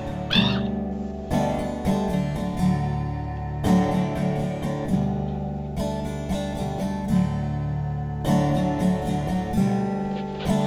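Background music: acoustic guitar strummed in slow chords, a new chord every one to two seconds over held low notes. A bird caws once at the very start.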